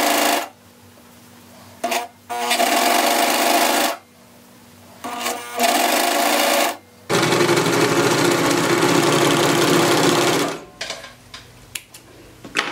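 Four-thread serger (overlock machine) running in several stop-start bursts of one to three seconds as it trims and overcasts the raw edge of velour fabric. The longest run stops about ten and a half seconds in, followed by a few light clicks.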